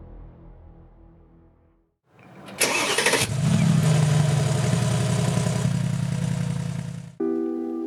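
Mercedes-AMG G 63's 4.0-litre biturbo V8 starting up: a short crank, a loud flare in revs, then settling into a steady idle that cuts off suddenly near the end.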